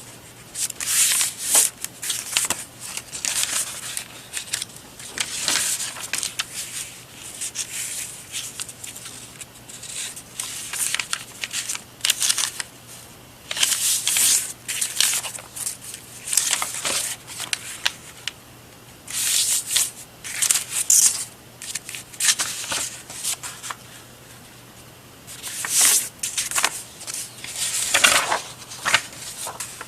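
Sheets of paper rustling and sliding against each other in repeated short bursts as bundles of journal papers are handled.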